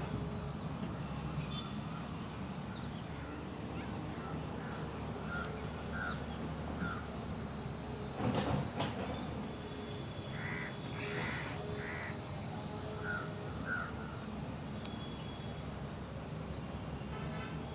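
Crows cawing repeatedly, with a bunch of calls about ten to twelve seconds in, over faint high chirps of smaller birds. A brief loud rustle about eight seconds in is the loudest sound.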